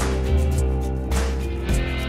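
Background music with a strummed guitar.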